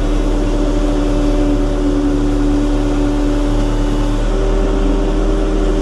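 JCB backhoe loader's diesel engine idling steadily, heard from inside the cab as a constant drone.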